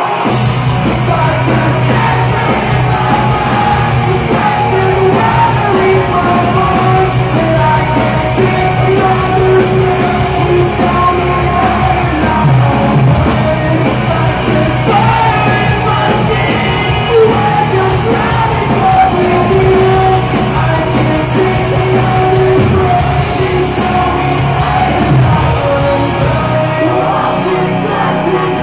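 Metalcore band playing live at high volume, with a heavy band and a singer's vocals, heard from within the crowd in a concert hall.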